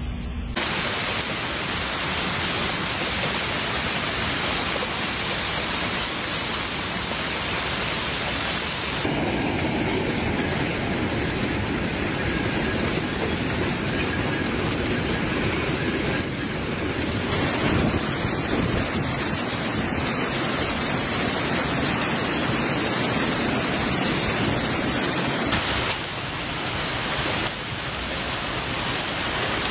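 Severe hailstorm: hail and heavy rain pelting down as a dense, steady hiss. The sound changes abruptly a few times as one recording cuts to the next.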